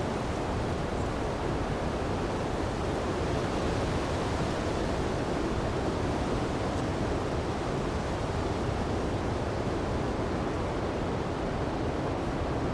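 Winter storm wind blowing steadily, a deep, even rush with no gusts standing out.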